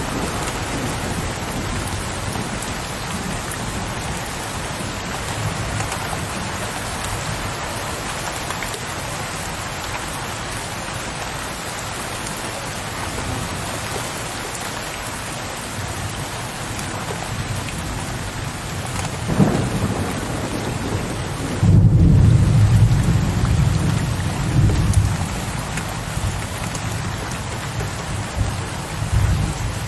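Steady heavy rain with low, distant thunder rumbling through it, the loudest roll starting about two-thirds of the way in and fading over several seconds.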